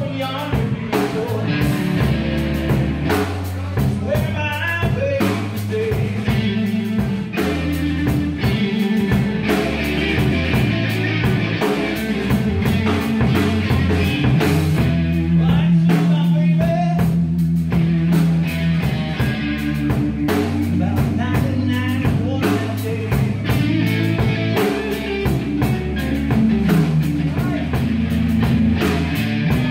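Live blues trio playing a slow blues instrumental passage: a Stratocaster-style electric guitar taking the lead over a Rickenbacker-style electric bass and a drum kit, with no vocals.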